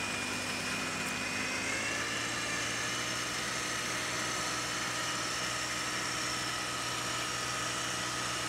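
Lura roller screed's small engine running steadily as the screed is pulled across wet concrete, its pitch rising slightly about two seconds in.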